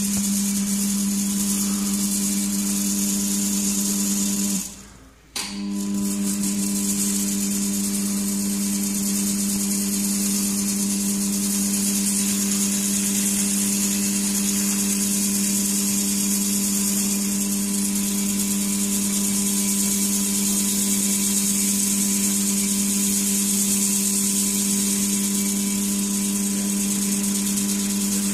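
Motor-driven bore-cleaning machine running steadily as its flexible cleaning shaft works inside a T-72 tank's 125 mm smoothbore barrel: a steady motor hum with a high hiss. It cuts out for under a second about five seconds in, then resumes.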